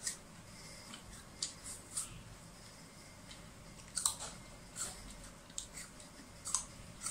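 A child biting and chewing crisp apple, with sharp crunches at irregular intervals about a second apart; the loudest bite comes about four seconds in.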